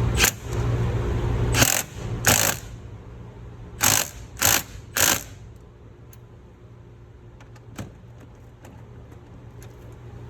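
Steady low machinery hum, louder for the first second and a half, with five short rasping mechanical noises over the next few seconds and a few light clicks near the end.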